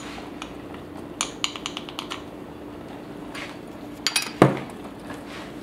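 Wooden spoon clicking and knocking against a saucepan while porridge is stirred: a quick run of light clicks about a second in and a louder knock about four seconds in, over a faint steady hum.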